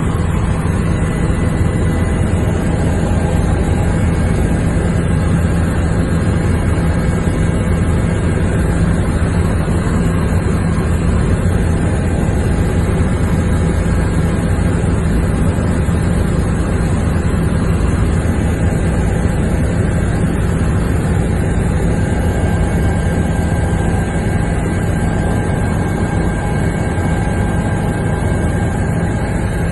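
Steady running noise of the aircraft carrying the camera: an even engine and rotor hum with several fixed pitches that does not change.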